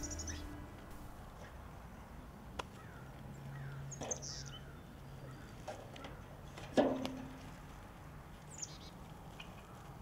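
Quiet outdoor ambience with birds chirping briefly three times, and a few footsteps knocking on aluminium bleachers. The loudest knock, about two-thirds of the way through, rings briefly.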